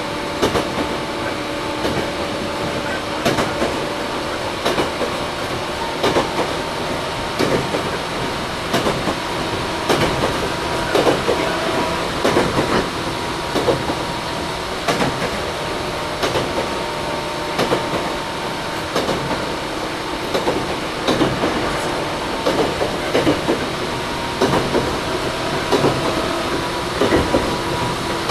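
Cabin running sound of a Toyohashi Railway 1800-series (ex-Tokyu 7200) resistance-controlled electric motor car under way. Wheels clatter over rail joints in frequent short knocks over steady rolling noise and a low hum.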